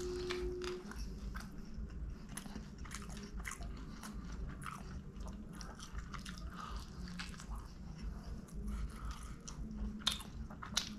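Close-up chewing of a Pizza Hut Melt's toasted, folded crust: bites and steady crunchy, crackling chewing, with a brief steady hum right at the start.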